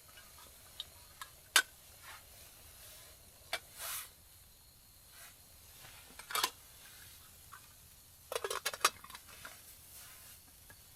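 Scattered clinks and knocks of camp cookware being handled as a small syrup bottle is set in a pot of hot water, with a quick run of clicks near the end.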